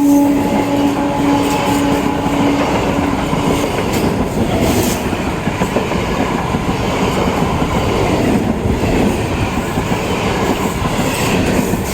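Electric multiple unit (EMU) local train running past, a steady loud rumble and clatter of wheels on rails. The tail of its horn fades out in the first few seconds.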